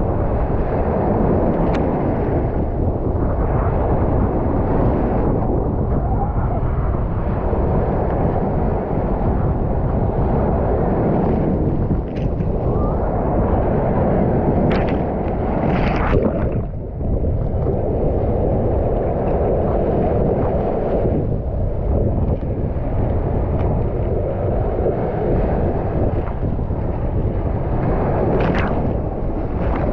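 Mediterranean Sea waves washing onto the shore, the surf swelling and falling back every few seconds, with a few sharper splashes. A deep rumble of wind on the microphone lies under it.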